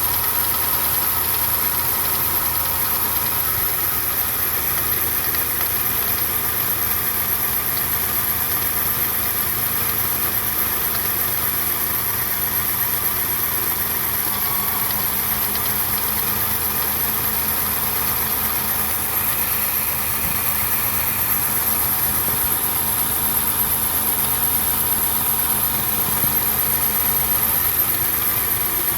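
1995 Toyota Land Cruiser FZJ80's 4.5-litre 1FZ-FE straight-six idling steadily with an engine knock.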